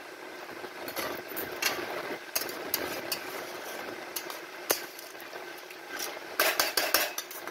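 Steel spatula stirring a liquid vegetable and dried-fish curry in a non-stick wok, with irregular scrapes and clinks of metal against the pan over a steady hiss; the knocks come thickest and loudest near the end.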